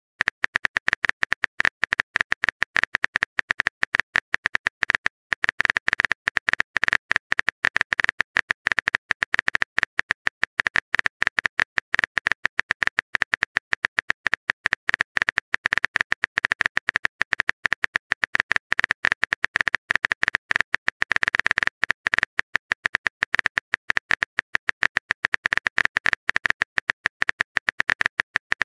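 Keyboard-typing sound effect of a texting app: a fast, continuous run of key clicks while the next message is being typed.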